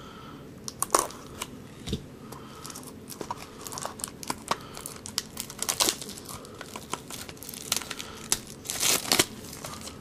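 Clear plastic wrapper on a trading-card pack crinkling and tearing as it is pulled off by hand: a run of short sharp crackles, loudest about a second in, around six seconds and again near nine seconds.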